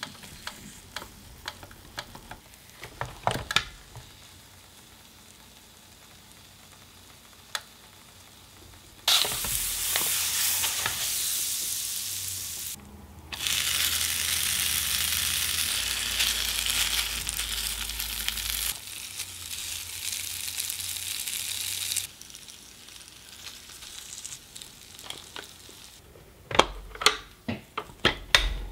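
A slice of meat sizzling on the hot nonstick grill plate of a Black+Decker WM2000SD 3-in-1 waffle, grill and sandwich maker, loud and even, starting abruptly about a third of the way in, breaking briefly, and stopping abruptly after about thirteen seconds. Before it come faint scrapes and taps of a utensil on the plate, and near the end a quick run of sharp clicks from the plastic lid handle being handled.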